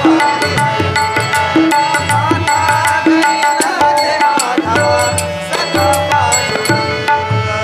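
Instrumental interlude of a Marathi devotional abhang: a harmonium plays a melody of held notes over a steady tabla rhythm.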